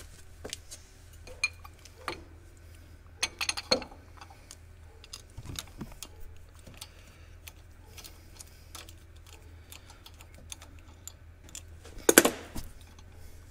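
Small metallic clicks and clinks of bolts and a socket wrench being handled against a steel frame as a part is bolted on. There is a louder clatter about three and a half seconds in, and another near the end.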